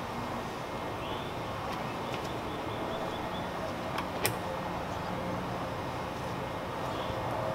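Microfiber towel wiping waterless wash over car paint, against a steady low background rumble. One sharp click about four seconds in.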